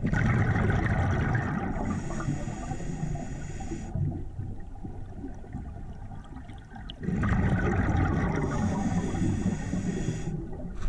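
Scuba regulator exhaust bubbles gurgling and rumbling underwater in two long exhalations, about four seconds apart, with a quieter stretch between them.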